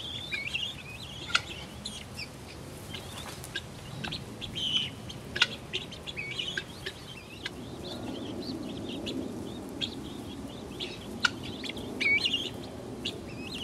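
Helmeted guinea fowl and their young chicks calling in a pen: many short, high, repeated chirps and chattering calls, with a few sharp clicks.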